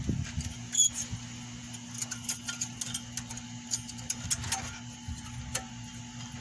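Small metallic clicks and taps of a new brake pad being worked into its caliper bracket and clips, the sharpest click about a second in, over a steady low hum.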